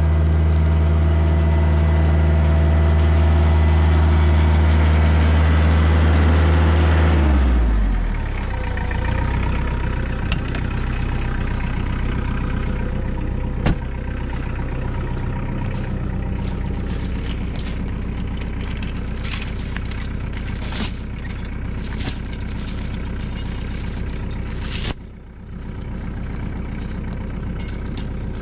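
Kioti DK40SE compact tractor's diesel engine running steadily at high revs, then throttled down to idle about seven seconds in. It keeps idling, with a few sharp clicks and clatters later on.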